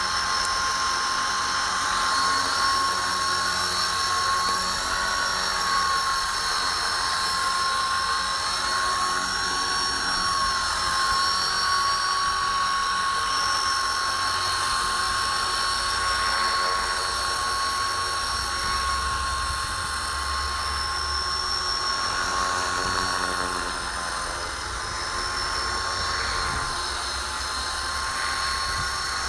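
Copter X 250 electric model helicopter flying: a steady high whine from its motor and rotor, the pitch wavering slightly as the throttle changes.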